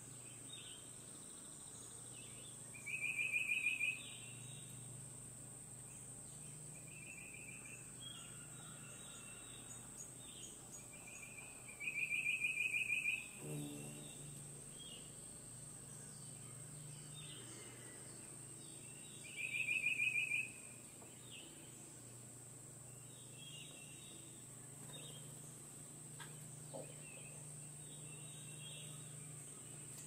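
Wild birds calling: a fast trill about a second long recurs several times, loudest three times, with softer scattered chirps between, over a steady high-pitched buzz.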